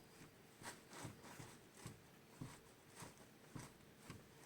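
Faint, soft knocks repeating about twice a second, from a steering tie rod end being rocked by hand. Each knock is the joint clunking through its play, the sign of a worn tie rod end with a loose bolt.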